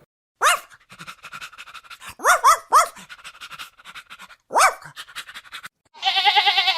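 A dog panting rapidly, broken by five short, high yelps. Near the end a wavering bleat begins.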